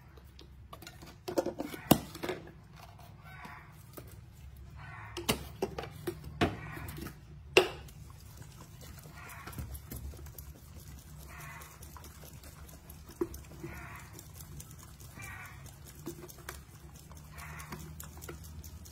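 Baby macaque giving short repeated calls, about one every second and a half, with a few sharp knocks and rustles in the first several seconds as it handles its bottle and moves about the basket.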